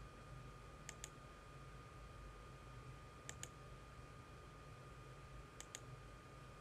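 Computer mouse button clicking: three quick pairs of clicks about two seconds apart, over a faint steady hum.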